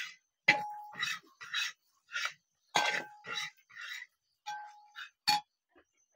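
A metal spoon stirs beef fry in a metal pan, scraping through the meat and knocking against the pan's side with several short ringing clinks, the loudest about half a second and three seconds in.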